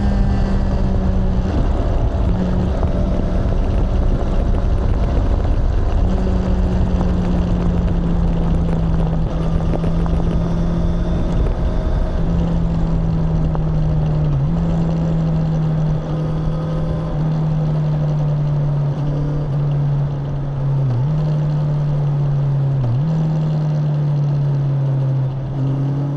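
Honda CBR650R's inline-four engine and exhaust running at a steady engine speed, its pitch sinking slowly with a few brief dips, over heavy low rumble.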